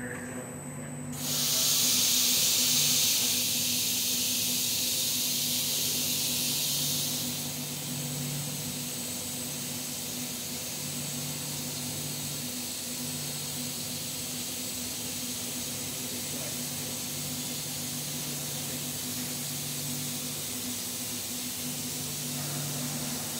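Compressed-air hiss from the robot cell's pneumatics, switching on suddenly about a second in, strongest for the first several seconds and then settling to a steadier, lower hiss. Under it a steady machine hum, with a lower tone cycling on and off every second or two.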